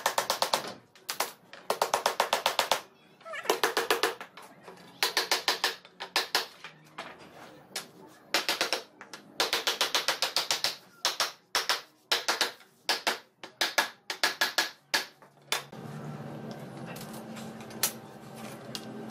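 A hammer tapping rapidly on wood in repeated bursts of about ten quick light blows, with short pauses between them, driving a wooden strip into a groove in a pine panel. A few seconds before the end the tapping stops and a steady low hum remains.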